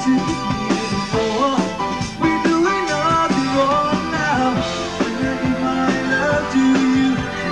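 Live rock song: a male lead singer sings into a handheld microphone over a full band with a steady drum beat.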